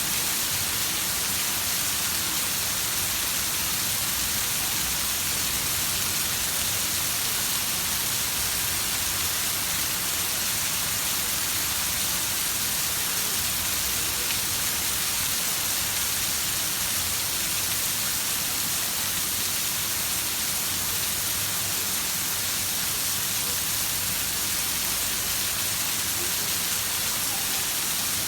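Heavy rain falling steadily, an even hiss with no breaks or single loud drops.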